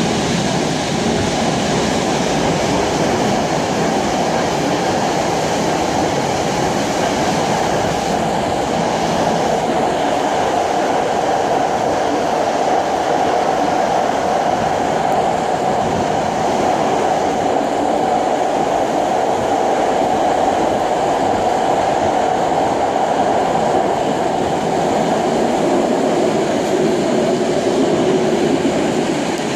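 Moscow metro train of type 81-765/766/767 "Moskva" running between stations, heard from inside the passenger car: a steady, loud rumble of wheels on rail and running gear with no breaks.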